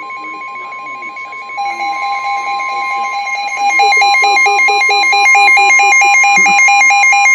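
Emergency alert tones: a steady high tone under a rapidly alternating two-note alarm, which steps up in loudness about one and a half seconds in and again near four seconds, with faint talking underneath.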